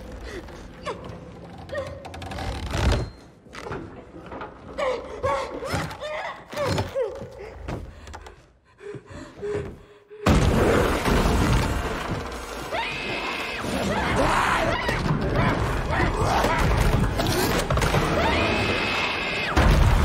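Horror film soundtrack: scattered thuds and knocks on wooden beams with a girl's strained gasps, then, about ten seconds in, a sudden loud surge of dense sound and music that stays loud.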